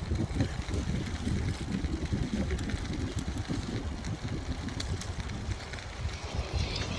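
Bicycle riding over a forest track: a steady, gusty low rumble of wind on the microphone and rolling tyres, with scattered small clicks and rattles.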